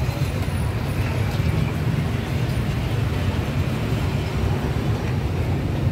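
Steady low rumble of busy street-market background noise, with no single sound standing out.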